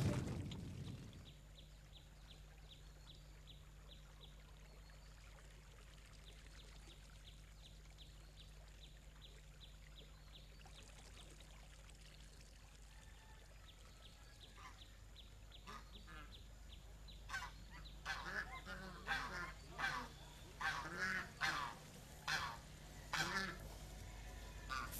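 Domestic geese honking, a series of short calls from about a quarter of the way through the second half onward, over a faint low hum with a faint rapid ticking.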